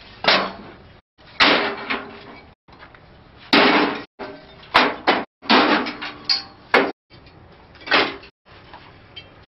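Hollow fired clay bricks knocking and clacking against each other as they are handled and stacked by hand, about nine sharp, irregularly spaced knocks. The sound cuts out abruptly to silence several times between them.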